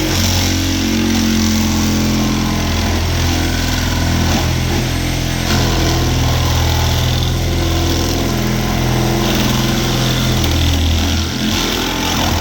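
Milwaukee Sawzall reciprocating saw running steadily at full speed, cutting through the sheet-metal body of a car, with a brief dip near the end.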